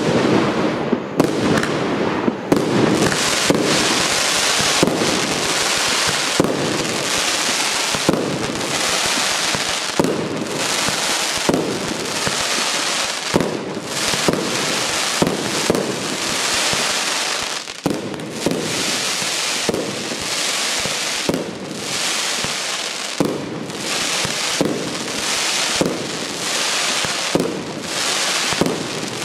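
Piro-Kaskad 'Artilleristy' PKU895 multi-shot fireworks battery firing shot after shot. Sharp bangs every second or two over continuous crackling.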